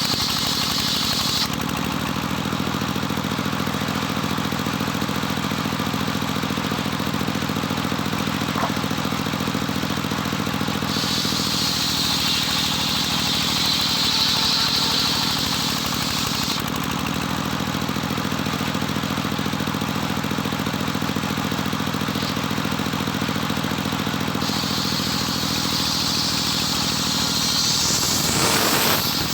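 Engine-driven, home-built circular sawmill running steadily while sawing Jetos timber into beams and rafters. A higher cutting hiss from the blade in the wood stops after a second or so, returns about eleven seconds in for some five seconds, and comes back again near the end.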